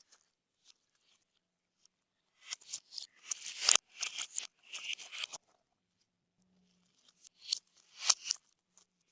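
Slime being squished and pressed by hand, making sharp crackling and popping sounds in two stretches: from about two and a half to five and a half seconds in, and again from about seven seconds until near the end.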